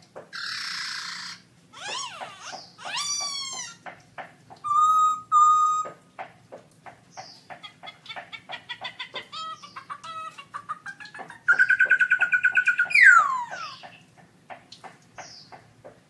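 Black-throated laughingthrush singing a varied song: a harsh noisy burst, a run of down-slurred whistles, two clear level whistles, then a long stretch of rapid ticking chatter that builds into a loud, fast trill ending in steep downward glides.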